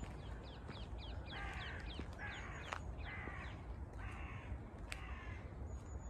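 A crow cawing four times, harsh calls about a second apart, over a string of quick, high, falling chirps from smaller birds.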